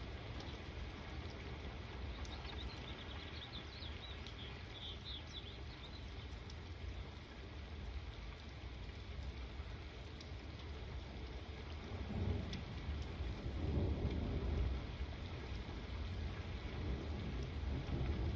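Steady rain falling, with low rolling thunder that swells about twelve seconds in and rumbles again a couple of seconds later. A bird chirps a few times a few seconds in.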